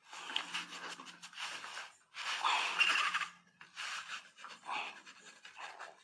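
A hand tool scraping over the clay of a peacock sculpture in a series of about five strokes, the first ones longer and the last few short.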